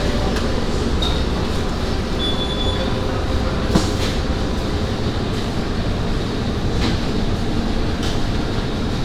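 Steady, even rumbling noise with a few faint clicks and two short high beeps in the first few seconds.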